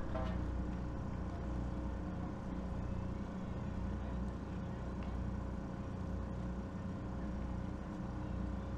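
Steady low rumble with a faint steady hum and no music: background noise at the venue.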